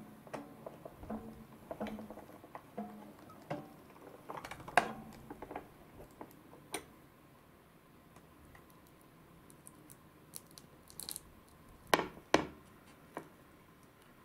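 Plastic gear rollers and crank of a hand-cranked sushi rice-forming toy clicking and knocking irregularly as it is turned and presses rice, then soft sticky squishes as a formed rice piece is pulled free, and two sharp knocks near the end.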